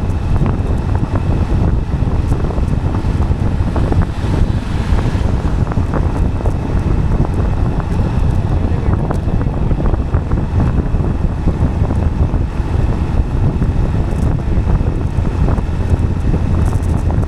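Wind buffeting the microphone over a steady low rumble of movement on the road.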